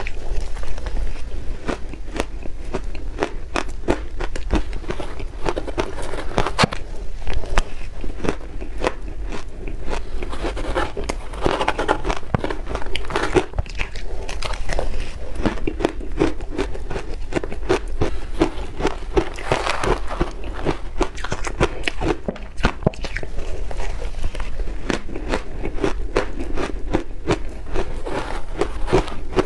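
Mouthfuls of matcha-powdered shaved ice being bitten and chewed: dense, continuous crunching and crackling of ice. The crunching grows louder for a while about twelve and twenty seconds in.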